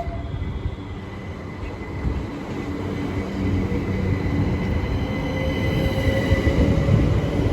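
Class 377 Electrostar electric multiple unit pulling away, its traction motor whine rising in pitch from about five seconds in as the train gets louder over the rail rumble.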